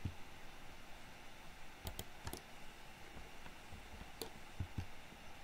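Scattered computer mouse and keyboard clicks over faint room noise: a few quick clicks about two seconds in and more around four seconds in.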